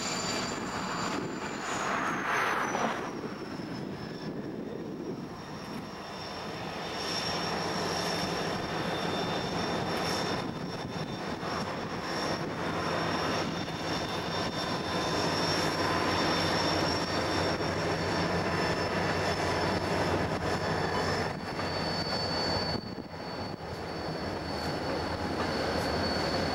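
Several diesel freight locomotives approaching and passing close by, their engines running with a steady drone that grows louder as they near.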